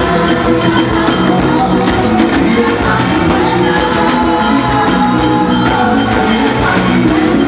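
Church praise music: a band playing with a steady beat and tambourine, with voices singing.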